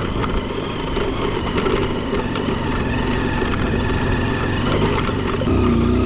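Small single-cylinder motorcycle engine running in low gear on a rough dirt track, with the odd knock and rattle from the bike over ruts. Near the end its note drops and gets louder as the engine takes load on a steep rise.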